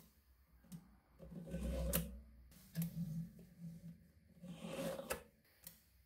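Small magnetic balls clicking and snapping together as they are handled and set in place: several sharp separate clicks, the loudest about two seconds in, over soft handling sounds.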